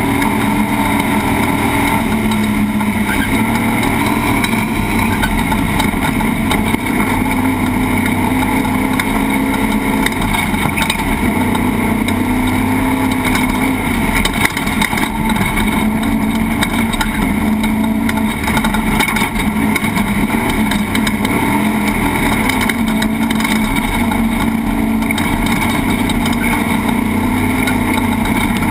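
Class 1450 off-road race truck's engine running hard at speed, its pitch rising and falling with the throttle, over a constant noisy rumble.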